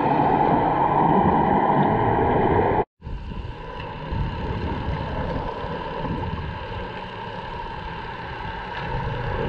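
Muffled underwater noise through a camera's waterproof housing: a steady rushing with a faint engine hum carried through the water. It is louder in the first few seconds while swimmers' fin kicks churn up bubbles, then drops out for an instant and goes on quieter.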